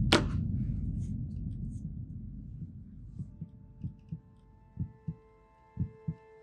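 A sharp click at the very start, then a low rumble dying away. From about three seconds in, a heartbeat sound effect pulses in double thumps about once a second under a held musical chord.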